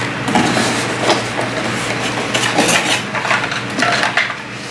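Hard plastic vacuum parts and packaging being handled: irregular clacks, knocks and rustling.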